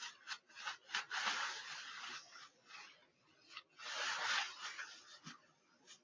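Rustling of a disposable isolation gown being unfolded and pulled on, the sleeves going over the arms: short rustles with two longer ones, about a second in and around four seconds in.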